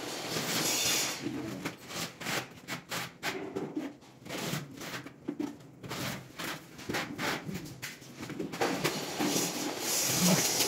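Irregular scraping and rubbing with scattered short knocks from hand tiling work on a large slab installation, with a longer hissing scrape near the start and again near the end.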